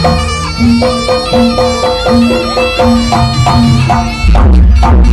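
Loud East Javanese jaranan music over loudspeakers: a slompret, the shrill reed shawm of jaranan, plays a melody of short held notes over gamelan and drums. About four seconds in, a heavy low beat comes in.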